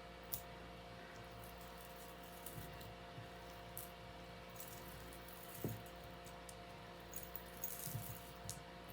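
Quiet handling sounds: a few small clicks and light rustles as jewelry chains are handled, with a cluster near the end, over a steady low hum.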